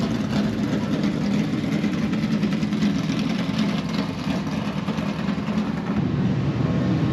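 Stock car engines running in a steady low rumble.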